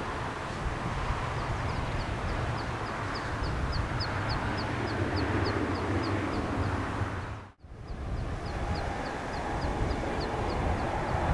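Distant jet aircraft noise, a steady rumble, with a high ticking about three or four times a second running over it. The sound cuts out for a moment about seven and a half seconds in, then the jet rumble of an airliner on approach grows louder toward the end.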